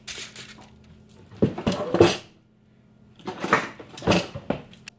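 A sheet of paper rustling and crinkling as it is laid and smoothed over a metal pizza tray, in three bursts, with light clatter from the tray.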